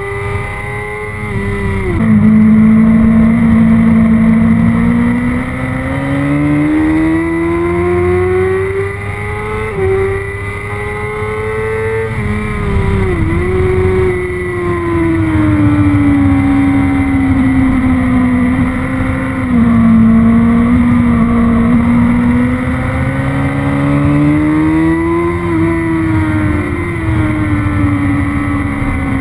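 Sport motorcycle engine heard from onboard at speed, its pitch rising under throttle and falling away through corners. There are sudden pitch drops at gear changes, one about two seconds in and another about ten seconds in, with wind rush underneath.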